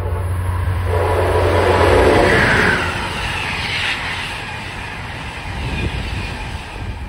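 Amtrak passenger train of Amfleet coaches passing at speed: a loud rush of wheel and air noise that peaks about two seconds in and then eases as the cars go by. A steady low hum runs through the first couple of seconds.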